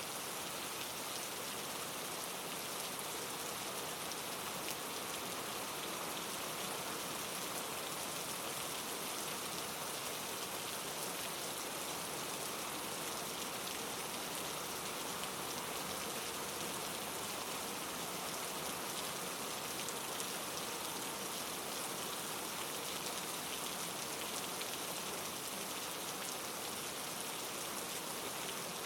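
Steady rain-like white noise: an even hiss with a faint fine patter that holds unchanged.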